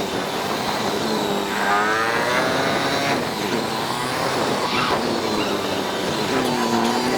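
Motorcycle engine under way, its pitch climbing and dropping several times as it accelerates and eases off, over a steady rush of wind and road noise.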